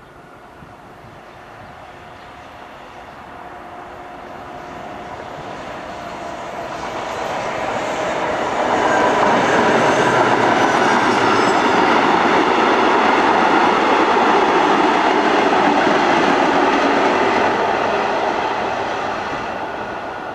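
Diesel-hauled passenger train with a second diesel locomotive at the rear passing by: the engine and the wheels on the rails grow louder over the first eight seconds, stay loud for about nine seconds as the coaches roll past, then fade. A faint high wheel squeal comes about ten seconds in.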